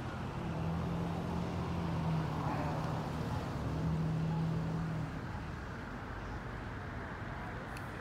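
Road traffic noise: a steady rush of passing cars, with a low engine hum that stops about five seconds in.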